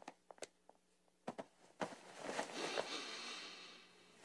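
Quiet cartoon footsteps, a few light taps in the first half as someone walks off, then from about two seconds in a long, soft inhale as a dog sniffs deeply into a sweater pressed to his face.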